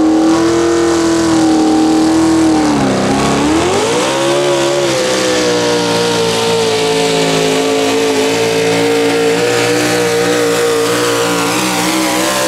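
Modified 4WD pulling truck's engine at wide-open throttle during a pull, running at high revs. About three seconds in the revs sag sharply, then climb back and hold steady.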